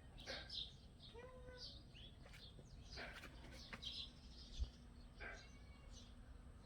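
Faint, scattered chirps of small birds, with a single soft low bump about four and a half seconds in.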